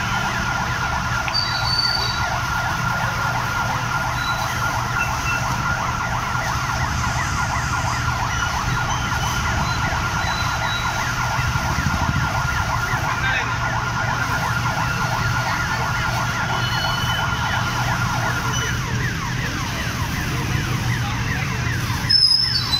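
Fire engine at a lorry fire: a steady high siren tone with fast repeating sweeps around it sounds over the low drone of a running engine. The tone cuts off about nineteen seconds in while the engine keeps running, and there is a single knock near the end.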